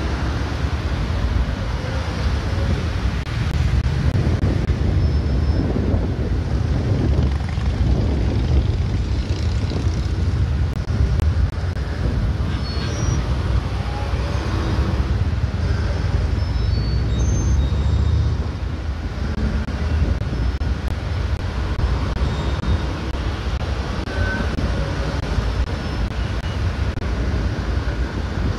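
Steady low rumble of outdoor road traffic noise.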